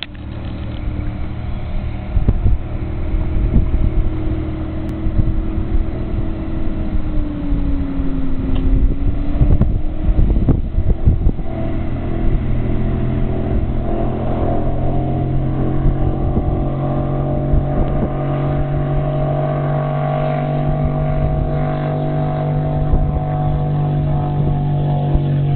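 A 29-foot Kryptonite powerboat's 540-cubic-inch naturally aspirated big-block V8 running hard at speed across open water. It quickly grows louder at the start as the boat nears, its pitch dips slightly about eight seconds in, then it holds a loud, steady, even drone.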